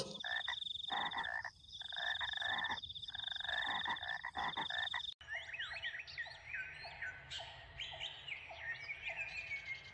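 Frogs croaking in chorus over a steady high trill, cutting off suddenly about five seconds in; then birds chirping, with one short note repeating about twice a second.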